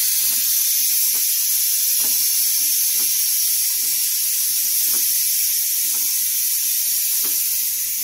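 Steady, loud hiss of compressed air from an air hose rushing into a tubeless manure spreader tire whose bead has not yet seated, with faint, irregular clicks and knocks underneath.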